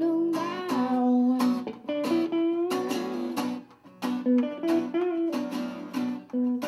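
Acoustic guitar played live, picking a line of short notes in a repeating pattern.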